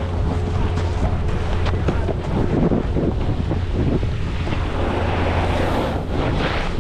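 Wind buffeting the microphone while riding fast downhill: a steady low rumble with a rough scraping hiss over it.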